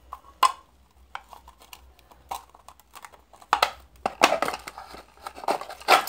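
Irregular clicks, taps and scrapes of small containers and a utensil being handled while making slime, louder clusters of knocks near the middle and near the end.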